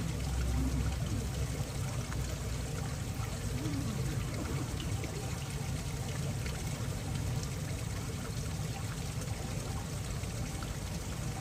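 Steady rain falling, with water trickling and pouring in a continuous rush.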